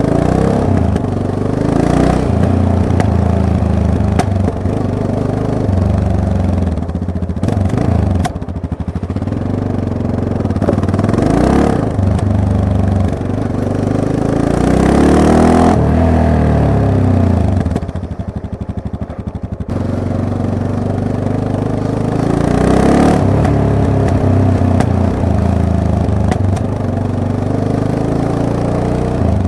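Yamaha MT-03 motorcycle engine running under way, its revs rising and falling with the throttle. The engine note drops off briefly twice, about a quarter of the way in and again about two-thirds through.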